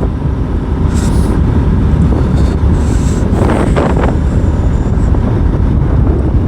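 Motorcycle riding along: a steady low engine and road rumble mixed with wind buffeting the microphone.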